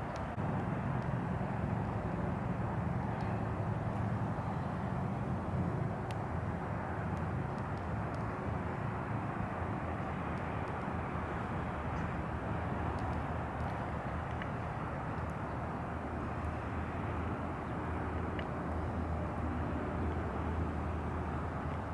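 A steady low mechanical hum, like a distant engine, over outdoor background noise, with a few faint clicks.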